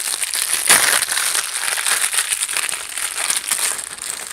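Small plastic packet crinkling as it is pulled open and handled, with a louder crackle about three-quarters of a second in.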